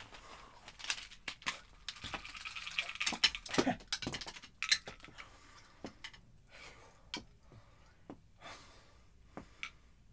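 Scattered light clicks and rustles of hands handling a small object, thickest in the first few seconds and sparser after.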